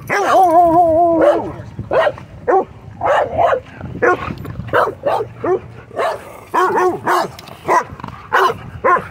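Dogs barking and yipping as they wrestle in rough play: a long, wavering, howl-like whine at the start, then a quick run of short barks, about two a second.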